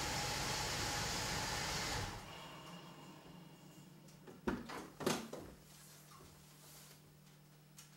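SUV engine running, then switched off about two seconds in. Two clunks about half a second apart follow as the driver's door is unlatched and swung open, leaving a faint steady low hum.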